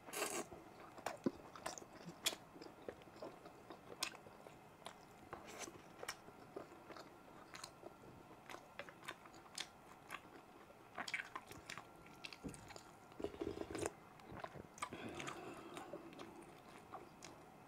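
Close-miked chewing of tender beef shank meat dipped in chili fish sauce, with many wet mouth clicks and lip smacks.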